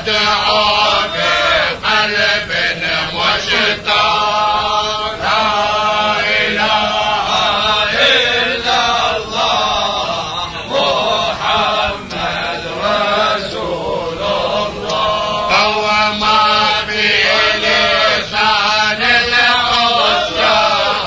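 Men's voices chanting an Islamic devotional tahlila (dhikr) in long, drawn-out, ornamented melodic lines.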